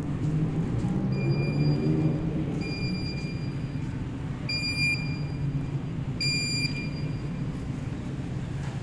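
An electronic beeper sounding four long, steady high beeps, each about a second long and spaced well over a second apart, over a low steady rumble.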